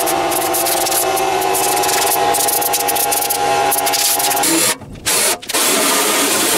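Compressed-air blow gun blasting dust out of an arc welder's transformer and windings: a loud hiss with a steady whistle in it. The air cuts off briefly twice about five seconds in, then blasts again.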